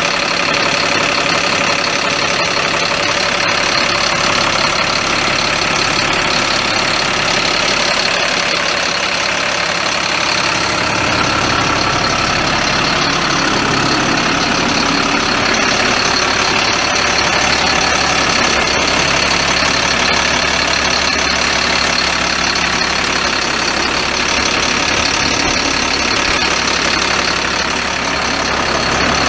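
Caterpillar C7 7.2-litre inline-six turbo diesel idling steadily.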